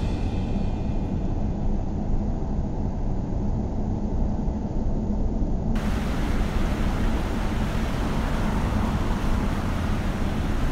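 Wind buffeting the microphone, a low steady rumble. A little over halfway through, a steady full-range rush of fast-flowing river water joins it.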